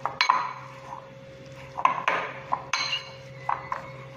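Perforated stainless-steel potato masher knocking against a glass bowl while mashing boiled potatoes: about eight irregular clinks in small clusters, several leaving a brief ringing tone.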